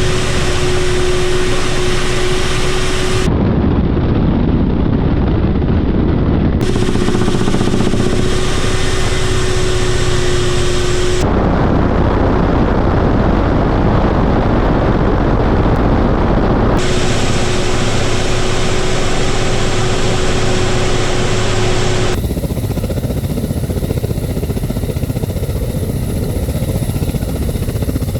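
Ka-52M attack helicopter's engines and coaxial rotors running, loud and continuous, in several short clips that change abruptly, some with a steady whine.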